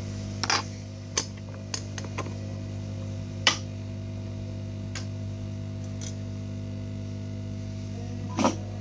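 Light clicks and taps of small parts and tools being handled on an electronics repair bench, about eight in all, scattered irregularly, the sharpest about three and a half seconds in. They sound over a steady low electrical hum.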